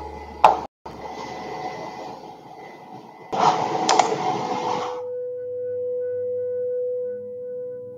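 Computer audio during a slide change: a sharp click about half a second in, low hiss, and a louder burst of hiss with another click at about four seconds. A steady held note follows for the last few seconds.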